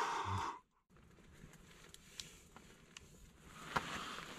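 A short breathy exhale, then after a brief dropout, faint rustling of a nylon sleeping bag with a few small clicks, growing louder near the end as the sleeper stirs.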